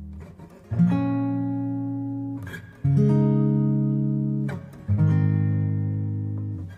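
Background music of acoustic guitar chords: a new chord struck about every two seconds, each left to ring and fade.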